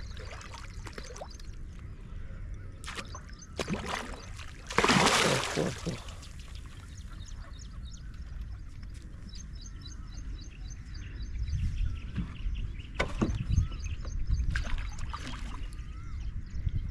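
Water splashing and sloshing, loudest in a burst about five seconds in, with a bird chirping in quick repeated notes through the second half.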